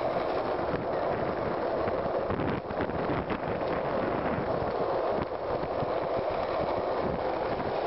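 Skateboard wheels rolling on asphalt, a steady rolling road noise with wind on the microphone, and a few light knocks of the board about three seconds in.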